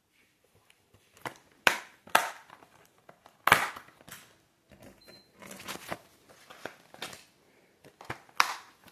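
A plastic Blu-ray case handled close to the microphone: a string of sharp clicks and snaps, two loud ones in the first few seconds and another near the end, with plastic crinkling and rustling between.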